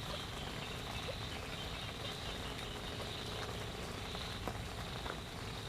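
Steady outdoor animal chorus: an even, high chirring over a low background hiss, with a few faint clicks.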